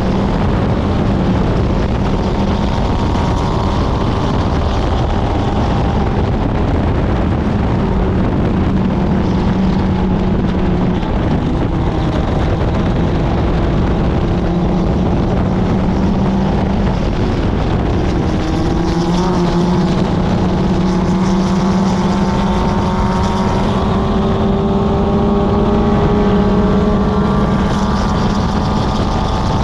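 Club Ford race car's four-cylinder Ford Kent engine running hard at racing speed, its note dipping and climbing with throttle and gear changes, and rising steadily through the last third. Wind noise buffets the microphone throughout.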